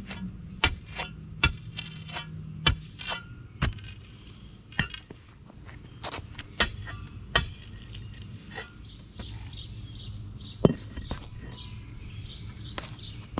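Steel digger bar and flat shovel stabbed down into sod and dirt around a concrete paver, cutting it into the lawn: a run of sharp chopping strikes, about one a second, with the loudest about ten and a half seconds in.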